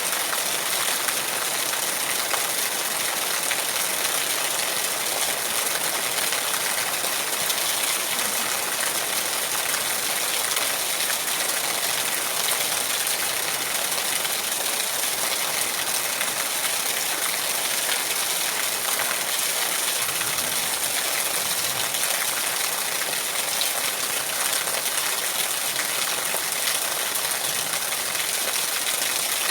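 Steady rain falling: an even, continuous hiss that stays level throughout.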